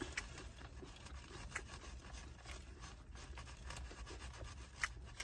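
Faint eating sounds: a fork scraping and tapping in a takeout food container, with chewing. There are a few small scattered clicks, the sharpest a little before the end.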